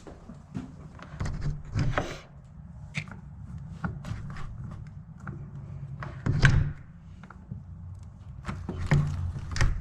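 Scattered knocks, clicks and thuds of hard objects being handled, over a steady low hum. The loudest thud comes about six and a half seconds in.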